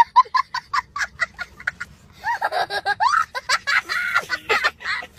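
A young child laughing hysterically: a rapid string of short, high-pitched laughs for the first two seconds, then longer squealing laughs that rise and fall in pitch.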